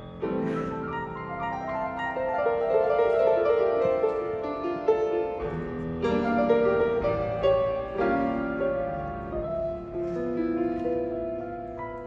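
Grand piano playing a jazz introduction: full chords struck about every two seconds and left ringing, with melody notes moving between them.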